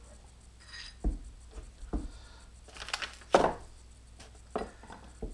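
Several short knocks and clunks of steel tooling being handled and set down on a granite surface plate, as a gear on a mandrel is taken out of a dividing head setup; the loudest knock comes about three and a half seconds in.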